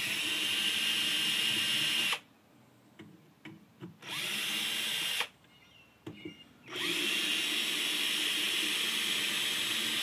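Cordless drill-driver running in three bursts, about two seconds, then about a second, then about three seconds at the end, backing small screws out of the sheet-steel case of a car CD player, with small clicks between the bursts.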